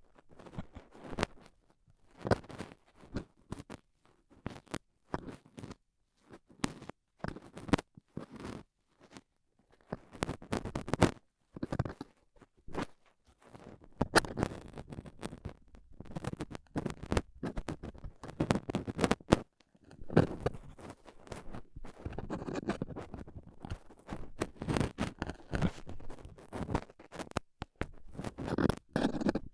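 Stainless steel dental pick scraping and scratching in an ear canal: irregular scratchy strokes and sharp metallic clicks in bursts, with short pauses between them.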